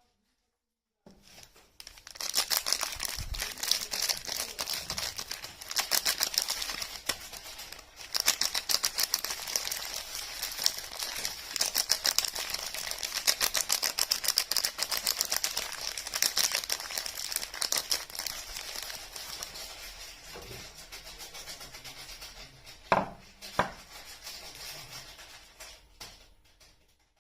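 Soap packaging being unwrapped by hand: a wrapper crinkling and crackling densely for about twenty-five seconds, with two sharp taps about three-quarters of the way through.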